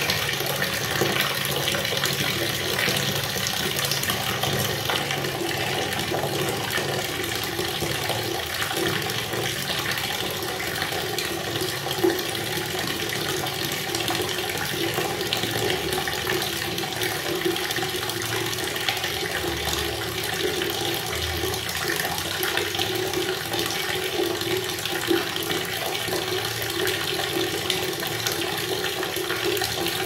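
Tap water pouring in a steady stream into a plastic bucket partly full of water, splashing into the churning surface.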